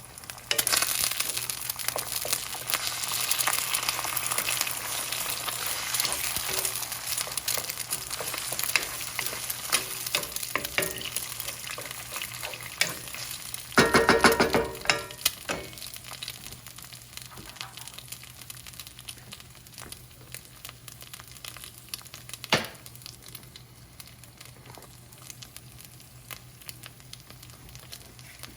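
Food frying in a hot pan and being stirred: a loud sizzle starts about half a second in and gradually dies down over the second half. A brief loud burst of noise comes about halfway through, and there are a few sharp knocks later.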